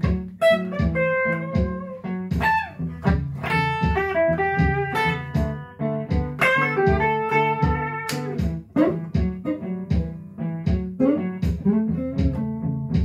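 Fender Stratocaster electric guitar playing a blues solo in A, single-note lines with some notes bent upward, over a blues backing track with a steady beat.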